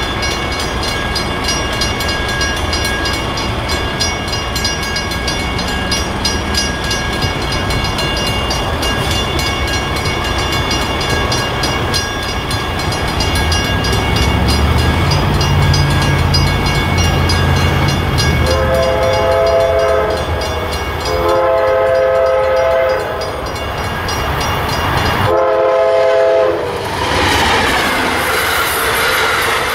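A grade-crossing bell rings as an Amtrak train approaches, its diesel rumble growing louder. The train's horn then sounds three blasts for the crossing, and near the end the Amfleet passenger cars rush past with their wheels clattering over the rails.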